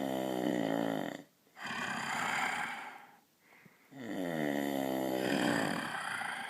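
A person snoring in two full breath cycles: each is a buzzing, rattling snore of about two seconds followed by a breathy rush of air.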